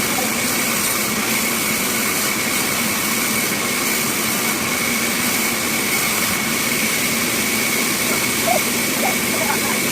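Bandsaw machine running steadily, with a constant high-pitched whine over a steady mechanical hum.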